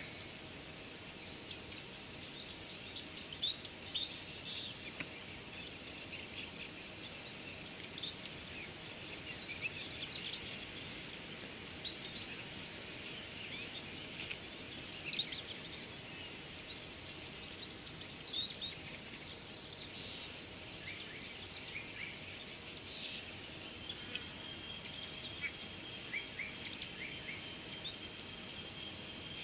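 Steady high-pitched insect drone, crickets or cicadas, with many short bird chirps scattered throughout.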